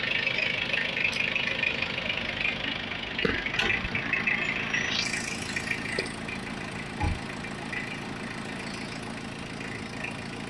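Mitsubishi Adventure engine idling steadily with the air-conditioning switched on. A steady hiss over the engine cuts off about five seconds in, and a few light knocks sound over it.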